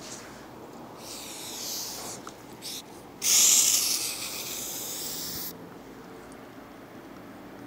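Aerosol can of Cutter Dry insect repellent spraying in one hiss of about two seconds, starting and stopping suddenly.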